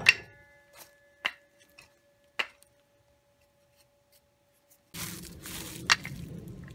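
Sharp knocks of small cut wooden blocks being handled at a miter saw: a loud one right at the start, then two more about a second apart. Near the end comes a steady low background noise with one click.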